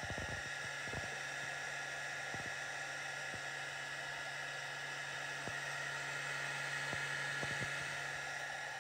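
Cooling fan of a home fiber-optic phototherapy (bili blanket) light unit running: a steady whir and hiss over a low, even hum, with a few faint ticks.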